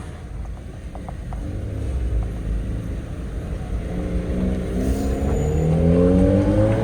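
Car with an aftermarket exhaust accelerating: a low exhaust rumble that rises in pitch and grows louder over the last few seconds.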